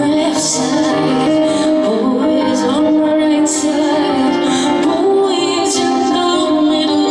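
Live music: a woman singing over steady, sustained instrumental accompaniment.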